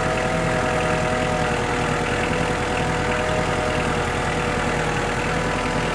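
An engine idling steadily, its pitch and level unchanging.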